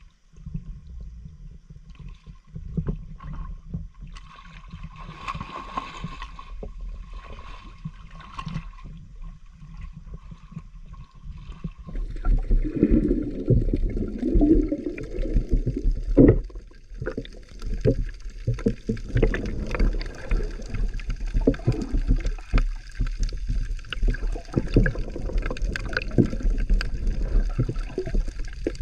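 Muffled underwater sound picked up by a camera held under shallow seawater: a low churning of moving water that grows louder about twelve seconds in, with many scattered clicks.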